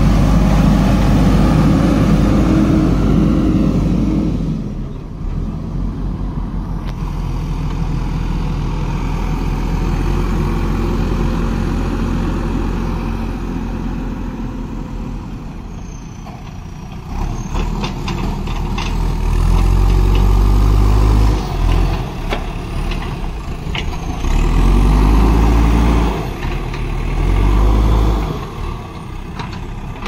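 JCB 3DX Super backhoe loader's four-cylinder diesel engine running and revving up again and again as the front loader bucket digs and lifts soil. A few sharp knocks come about halfway through.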